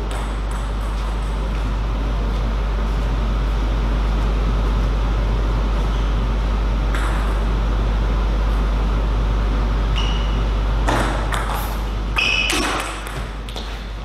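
Table tennis ball clicking off rackets and table in a short rally near the end, with a few light ball taps earlier, over a steady hum and hiss.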